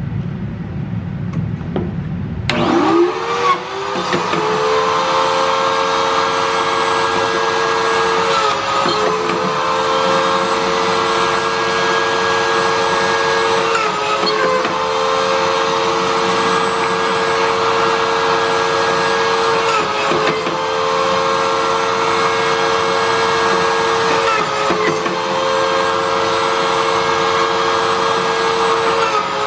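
Pocket-hole machine's motor spinning up, rising quickly in pitch about two and a half seconds in, after a low rushing noise. It then runs steadily with a brief dip in pitch every five or six seconds as the bit is fed into the wood for each hole.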